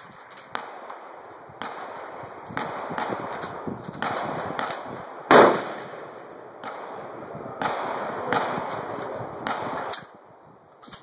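Suppressed .22 AR-15 rifle firing rapid strings of shots in two runs, with one louder crack about five seconds in. The shooting stops about a second before the end.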